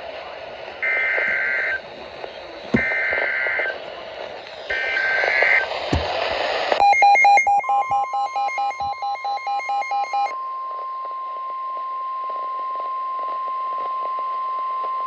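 NOAA Weather Radio alert over radio hiss. First come three warbling bursts of SAME digital header data, each about a second long with a second between them. Next is a few seconds of rapid electronic beeping, and then the steady 1050 Hz warning alarm tone starts about halfway through and holds, announcing a new warning.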